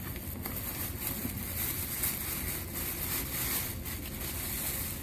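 Rustling and crinkling of paper and packing material as a gift box is unpacked by hand.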